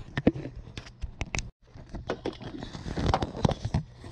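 Irregular light clicks and knocks of things being handled in a kitchen, with the camera being picked up and moved; the sound cuts out briefly about one and a half seconds in.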